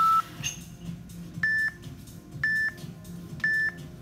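Interval timer beeping: a long, lower tone that marks the end of a hold cuts off just after the start, then three short, higher beeps a second apart count down the end of the 5-second rest.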